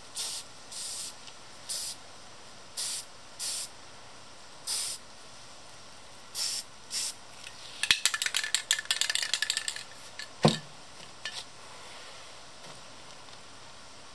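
Aerosol spray paint can sprayed in about ten short, separate puffs. Then about two seconds of dense crackling as a sheet of newspaper is handled over the painting, followed by a single sharp knock.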